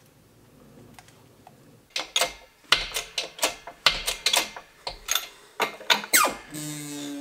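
Homemade hydraulic press straightening a bent Argo wheel axle on roller supports: from about two seconds in, a run of sharp metallic clicks and knocks, two or three a second. Near the end, a falling squeal that settles into a steady tone.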